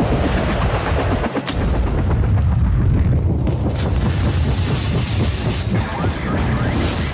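Wind buffeting the microphone: a loud, uneven low rumble with a few brief clicks.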